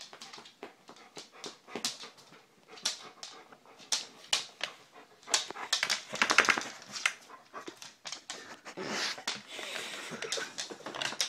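Dog panting and sniffing in short, irregular breaths, busiest around six to seven seconds in.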